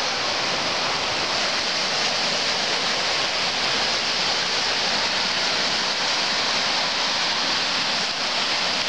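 Black Sea surf: small waves washing onto a sandy, rocky shore, an unbroken steady hiss.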